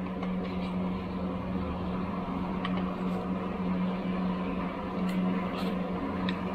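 A steady mechanical hum at one low pitch, like a motor or fan running, with a few light clicks as a plastic cassette tape case is opened and the cassette handled.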